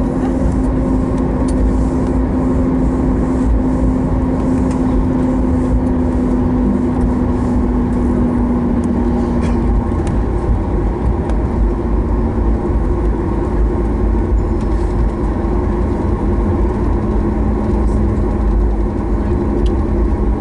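Cabin noise of a Boeing 737 MAX 8 taxiing: a steady, loud rumble from the CFM LEAP-1B engines at idle and the airliner rolling over the taxiway. A steady hum runs under it and drops a little lower in pitch about halfway through.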